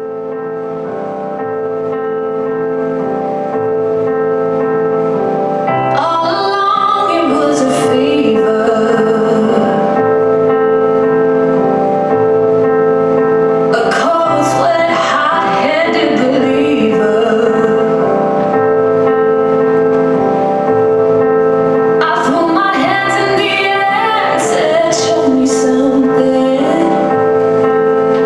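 Music: a steady held chord with a woman's voice singing in three long phrases. It fades in over the first few seconds.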